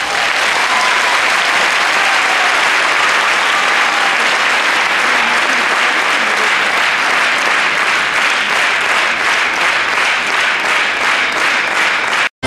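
An audience applauding steadily, a dense wash of many hands clapping. It cuts off abruptly just before the end.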